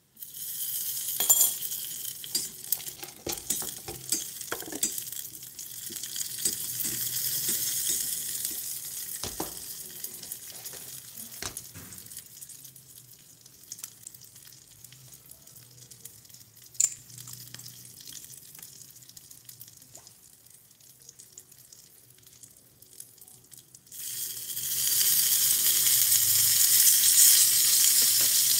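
Hot oil sizzling in a miniature stainless-steel pot as a spoonful of paste goes in, with the perforated skimmer clinking against the pot as the food is stirred. The sizzle dies down, then near the end it rises suddenly to a loud, steady hiss as liquid is added to the hot pot.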